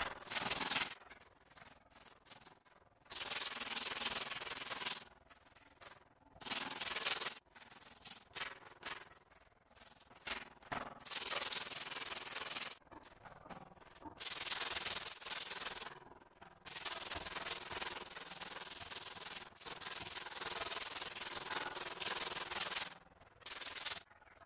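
Hand tool rubbing and scraping across a cement-and-sand patch on a wall in repeated strokes of uneven length with short pauses between, as the crack repair is smoothed and finished.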